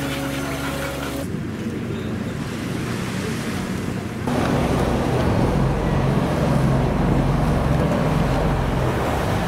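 Surf washing and wind on the microphone, with a steady engine hum at first. About four seconds in, a louder deep diesel rumble from the Shannon-class lifeboat's engines takes over as the boat lies close by.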